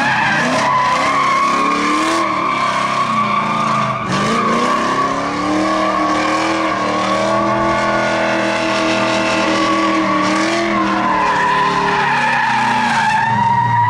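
A drift car's engine held at high revs while its rear tyres spin and squeal without a break, warming the tyres before a run. The engine note dips briefly about four seconds in, then climbs and holds.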